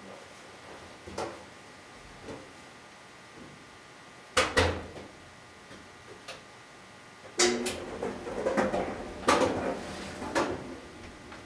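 A series of knocks and clunks: a couple of small ones early, a loud one about four seconds in, then a quick run of loud knocks in the second half.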